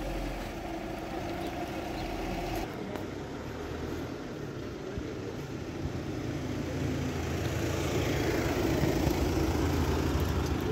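A motor vehicle's engine running at low revs close by, a steady low hum that grows louder in the second half.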